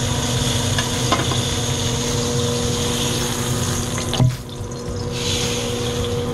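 Flap steak sizzling in hot oil in a stainless steel frying pan, over a steady low hum. About four seconds in there is a knock as the steak is lifted out with tongs, the sizzle briefly drops, then the fat left in the pan sizzles on.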